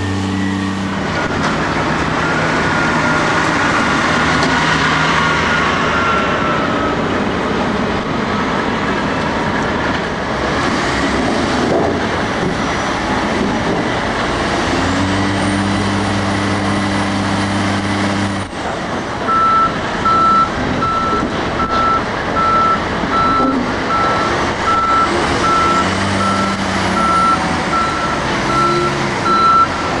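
Kalmar RTD1623 log handler's diesel engine running as the machine works and drives. About two-thirds of the way in, a high reversing alarm starts beeping in an even rhythm and keeps on.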